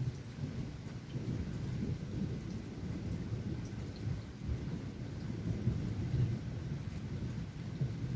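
Distant thunder rumbling low and rolling, swelling and easing without a sharp crack, over light rain with scattered raindrop ticks.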